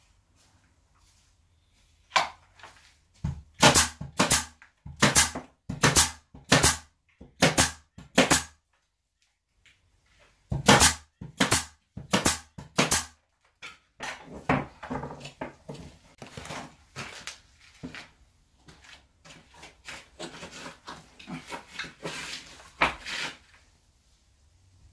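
Hammer knocking on wooden wall boards, about two blows a second in two runs, then a longer stretch of quicker, softer scraping and knocking on the wood.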